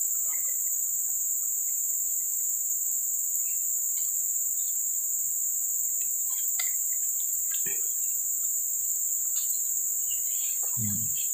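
Steady, high-pitched insect chorus, a continuous shrill drone at two high pitches, with scattered faint ticks and a soft low thump near the end.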